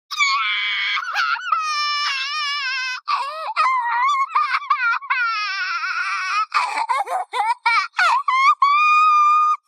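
Cartoon girl's voice crying: very high-pitched, wavering wails held for a second or more, breaking into short choppy sobs about two-thirds of the way through, then one long held wail that cuts off at the end.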